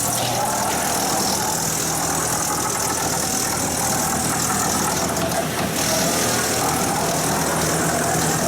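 BX-216 drum-type wood chipper running: a steady mechanical drone of its electric motors and cutter drum, with a low hum under a broad hiss.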